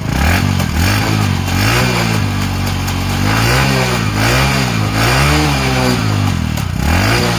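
Bajaj Platina's single-cylinder four-stroke engine being revved in quick throttle blips, the pitch rising and falling about once a second.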